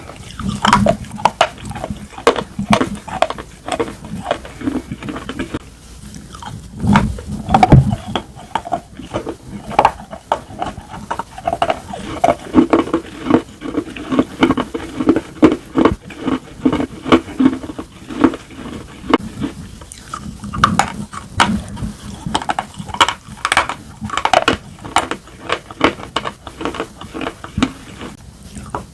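Slate pencils being bitten and chewed close to the microphone: a dense, irregular run of sharp, dry crunches, several a second, with louder bites about a quarter of the way in and again past the middle.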